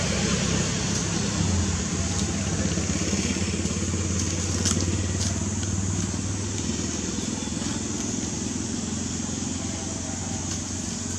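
Steady low engine hum, with a few faint crackles.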